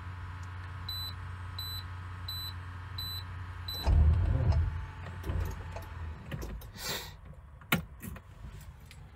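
An International semi truck's dashboard warning chime beeps about five times over a steady hum. About four seconds in, a heavy clunk and a short low rumble come as the starter is tried; the batteries are too weak and cold to turn the engine over. A few light clicks follow.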